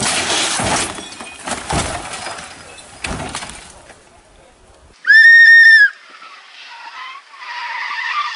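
A small hatchback rally car crashing and rolling over on tarmac: a jumble of scraping and banging impacts that dies away after about three seconds. About five seconds in comes a very loud, shrill steady tone lasting about a second, followed by voices shouting.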